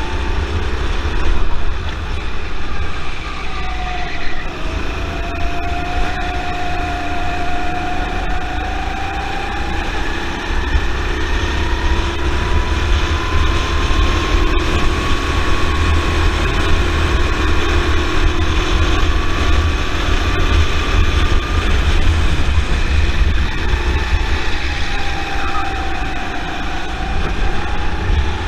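Go-kart engine heard from the driver's seat, its pitch climbing slowly as the kart gathers speed and dropping again near the end, over a heavy low wind rumble on the microphone.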